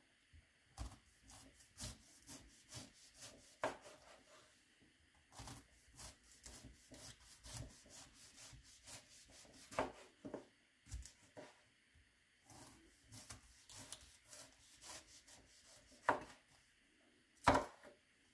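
Kitchen knife slicing through a head of green cabbage on a wooden cutting board, with irregular cuts and knocks of the blade on the board. A few louder knocks come about ten seconds in and near the end.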